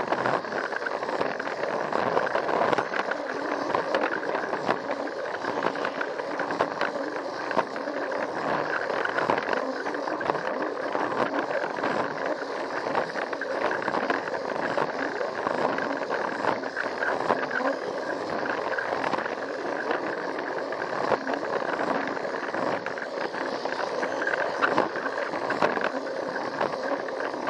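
Battery-powered Plarail toy train heard up close from on board: its small motor and gearbox running steadily with a whirring rattle as the wheels roll along plastic track.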